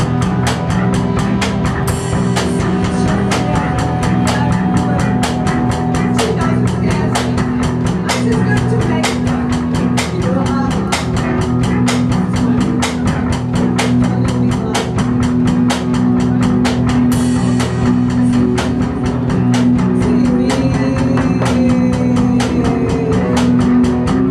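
Loud improvised live rock set: a drum kit beating in a fast, even pulse under a steady droning electric guitar, with a woman's voice through a microphone.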